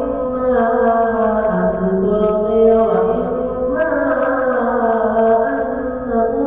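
Quranic ruqyah recitation: one voice chanting Arabic verses in long, drawn-out melodic phrases that glide in pitch, with brief pauses for breath.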